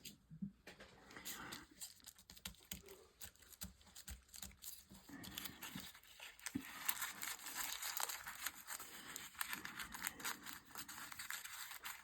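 Paper being handled: quiet rustling, crinkling and tearing, sparse at first and becoming busier from about halfway through.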